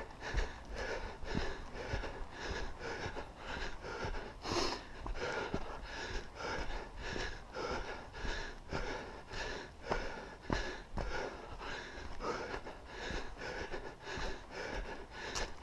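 A person breathing hard in quick, even breaths, about two a second, from the exertion of climbing uphill.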